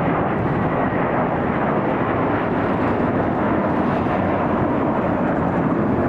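Jet airliner taking off, its engines at takeoff power making a steady, unbroken rushing noise.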